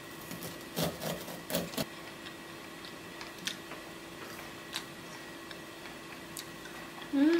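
Kitchen knife cutting kernels off a raw ear of chodang sweet corn on a wooden cutting board: a quick cluster of crisp cuts and knocks against the board in the first two seconds, then a few light ticks. A faint steady hum sits underneath.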